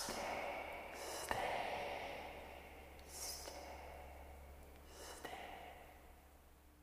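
Breathy, sighing sounds from a dark ambient horror soundtrack, three of them about two seconds apart over a low steady hum, the whole track fading out.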